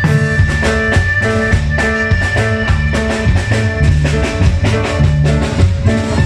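A norteño band playing a cumbia, with the drum kit keeping a steady, even beat over bass and sustained instrument tones.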